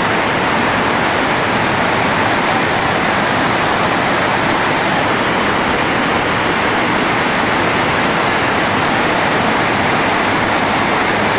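Whitewater rapid rushing over rock ledges: a loud, steady, unbroken rush of churning water.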